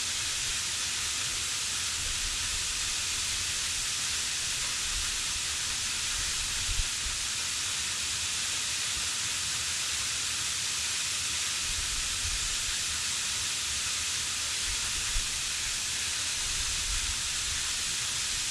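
Steady hiss of water falling down a waterfall close by, with irregular low rumbles and two brief knocks.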